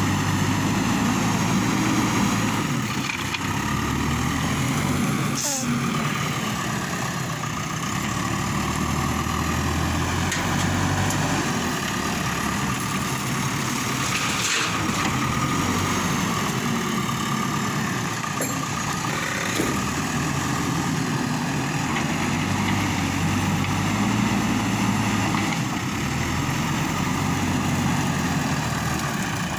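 Diesel engine of a JCB backhoe loader running steadily, its low note shifting up and down every few seconds as it works, with a couple of short hisses.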